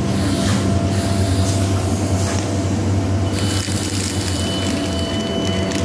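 Tyne and Wear Metrocar train moving along an underground station platform: a steady low rumble of motors and wheels on rail, with a thin high whine joining about three seconds in.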